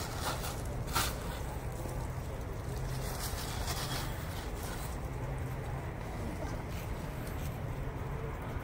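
A low steady rumble of outdoor background, with a few short crinkly rustles, about a second in and again near four seconds, from a plastic bag of biscuits being handled.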